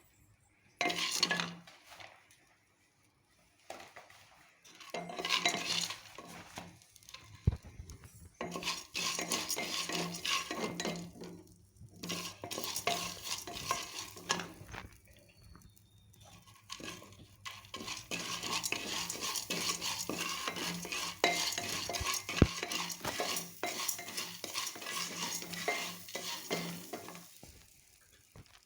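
Corn kernels being stirred and fried in a hot, butter-greased pressure cooker: a spoon scraping and clinking irregularly against the pot, with a light sizzle.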